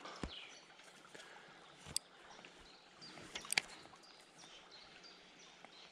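Faint steady rush of a small river's current, with a few sharp clicks about two and three and a half seconds in and short, faint high bird chirps.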